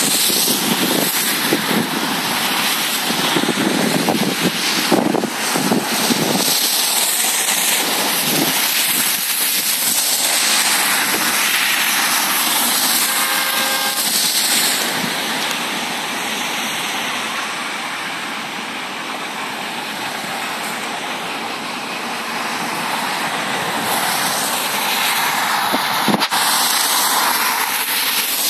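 Steady road and wind noise of a moving car, tyres hissing on a wet road, with a brief pitched tone about halfway through.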